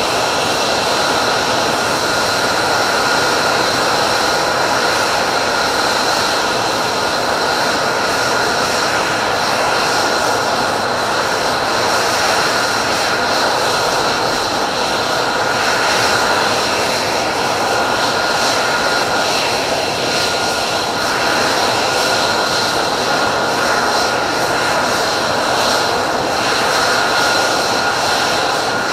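Single-engine F-35A's turbofan running steadily on the ground: a steady high whine over a constant rushing roar, with no change in pitch or power.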